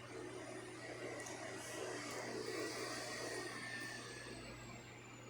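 Kitchen blender running faintly as it mixes a thick pie batter, a steady whirring hiss with a thin motor whine that slowly drops in pitch.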